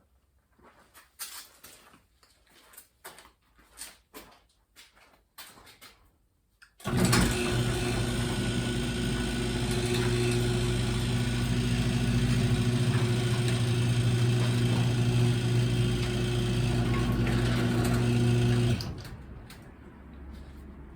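Garage door opener motor starting suddenly and running with a steady hum for about twelve seconds as it raises a door whose torsion spring has broken on one side, then cutting off. Before it starts there are only faint scattered knocks and shuffling.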